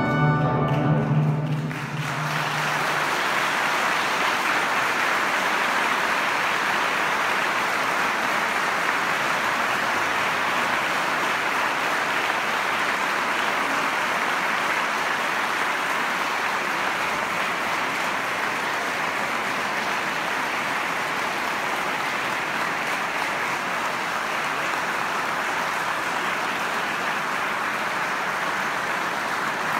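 The ensemble's final held chord rings out and ends about two seconds in, then the audience applauds steadily.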